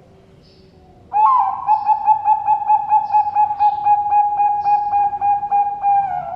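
Zebra dove (Bangkok-type perkutut) cooing: one long trilling coo held at a steady pitch with a fast, even pulsing. It starts about a second in and lasts about five seconds. Faint, short, high chirps come and go behind it.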